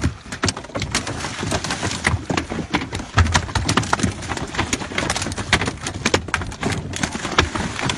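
Freshly landed mahi-mahi thrashing on a wooden boat deck: rapid, irregular knocks and slaps of tails and bodies against the planks.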